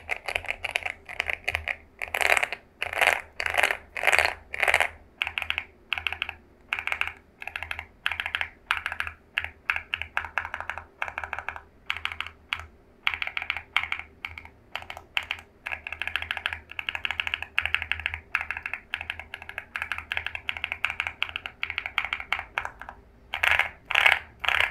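Epomaker AULA F75 mechanical keyboard with linear switches being typed on continuously in a sound test: quick runs of sharp keystroke clacks, with the heaviest strokes about two to five seconds in and again near the end.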